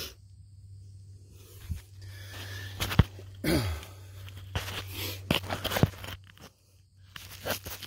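Crunching and scraping of dirt and broken rock under hand, mixed with rubbing on the camera, with a few sharp knocks, the loudest about three seconds in.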